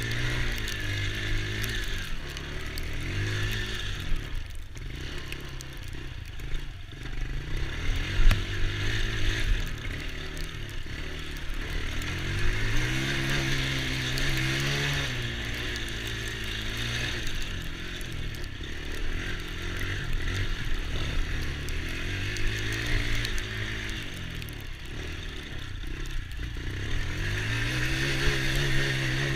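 Small ATV engine running under riding, revving up and easing off again and again, its pitch rising and falling every few seconds.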